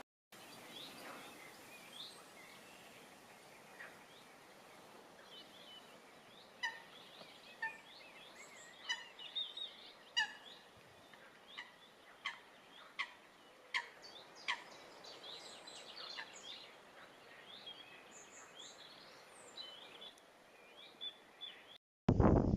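Wild birds calling: a sharp falling call repeats about once a second through the middle, with other birds' chirps and twitters around it, all fairly faint over a light background hiss.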